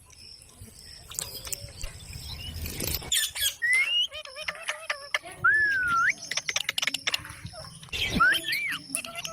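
Pet parrot chirping and whistling: short calls, then a long wavering whistle in the middle that rises at its end, a quick rattle of clicks, and more rising and falling whistles near the end.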